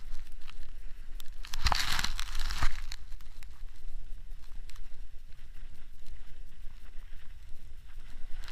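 Snowboard sliding and carving over snow: a steady low rumble with a hissing scrape of the board's edge, loudest about two seconds in.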